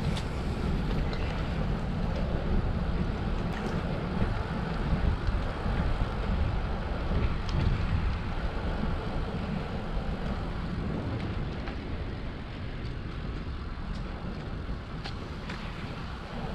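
Wind buffeting the microphone of a camera carried on a moving bicycle, a steady low rumble with riding noise underneath and a few faint ticks. It eases a little in the last few seconds.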